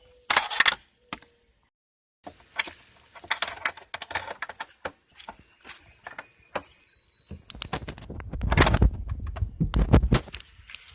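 Quick clicks, taps and scrapes of a flathead screwdriver probing metal parts inside a hood-latch opening, with a louder rough rumbling stretch of handling noise near the end.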